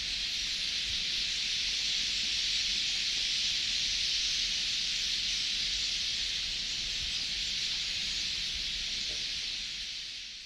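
Steady, shrill drone of an insect chorus in the bush, fading out near the end.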